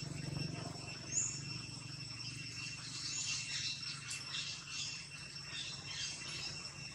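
Steady high-pitched insect drone with scattered short high chirps and squeaks over it, the sharpest one about a second in.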